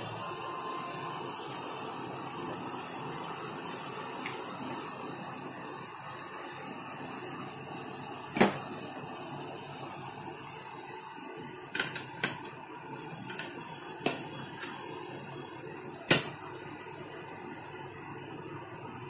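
Steady hiss, with a few sharp metal clinks as a steel ring is handled against the steel steamer pot: one about eight seconds in, a quick cluster around twelve to fifteen seconds, and a louder one near the end.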